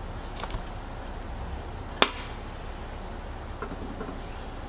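A single sharp metallic clink with a short ring about two seconds in, among a few faint handling knocks, from hands working the belt and pulleys on a steel rider-mower cutting deck.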